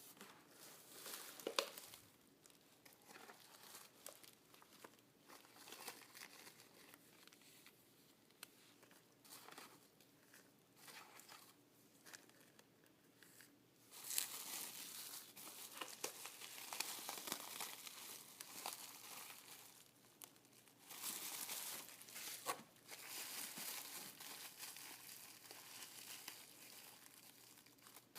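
Packaging being crinkled and torn by hand in irregular bursts. It is sparse at first, then busier and louder from about halfway through.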